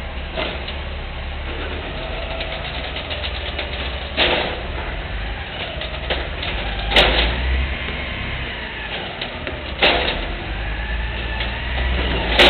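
Amrep automated side-loader garbage truck's diesel engine running steadily while its hydraulic arm lifts and dumps a wheeled recycling bin, with four loud bangs about three seconds apart as the bin is tipped into the hopper.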